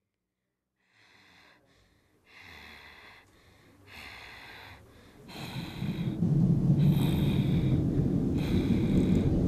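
A person breathing in and out, about one breath every one and a half seconds, the breaths growing louder. Under them a low rumble swells up about five seconds in and becomes the loudest sound.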